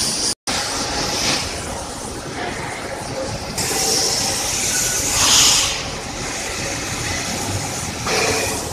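Steady din of heavy wheel-production machinery on a factory floor, with a loud hiss that swells and fades around the middle and again briefly near the end. The sound drops out for an instant near the start.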